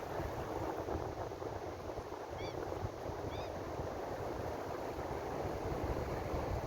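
Ocean surf washing steadily, with a low uneven rumble underneath. Two faint short high calls sound a little under a second apart near the middle.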